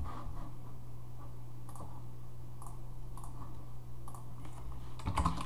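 A few scattered clicks of a computer mouse and keyboard, with a quick cluster of clicks near the end, over a steady low electrical hum.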